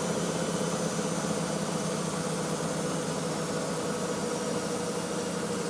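Miele W562 washing machine spinning at high speed on its final spin: a steady running noise from the drum and brushed motor, with a steady whine held at one pitch.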